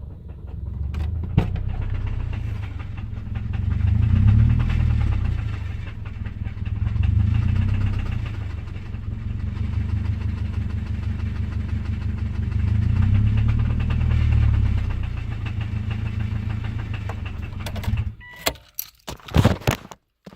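Subaru 2005 EJ253 2.5-litre flat-four engine running with a horrible rod knock, getting louder three times as it is revved and settling back. The engine stops about eighteen seconds in, followed by a few sharp clicks.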